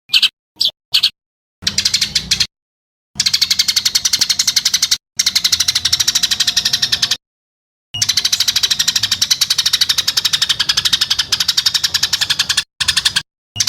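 A songbird's harsh, rapid-fire rattling call, a 'tembakan kasar', as used in bird-training recordings. Three short bursts come first, then longer runs of quick, buzzy notes, each run cut off by sudden silence.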